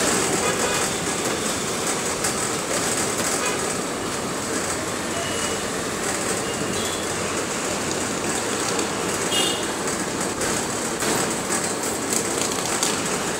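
Steady ride noise inside a moving city bus: engine running, with body rattle and road noise. Faint short horn toots from traffic come through about five and nine seconds in.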